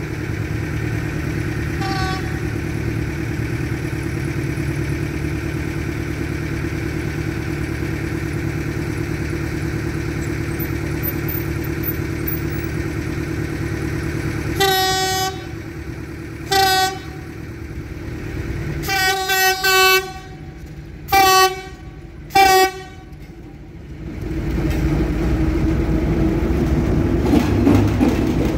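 Freight train's CRRC diesel locomotive sounding its horn six times on its approach, a warning for the level crossing: one longer blast, a short one, a quick pair and two more short ones. From about 24 seconds in the locomotive and its wagons pass close by with a loud rumble, over a steady low engine drone that runs through the first half.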